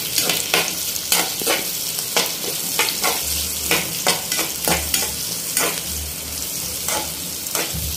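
Chopped onions sizzling in hot oil with cumin seeds and curry leaves in a kadai, stirred with a metal slotted spoon. The steady hiss of the frying is broken by repeated scraping strokes of the spoon against the pan.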